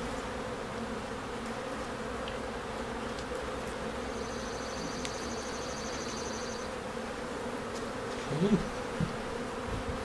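Honey bees buzzing steadily, a colony stirred up around frames of an opened hive.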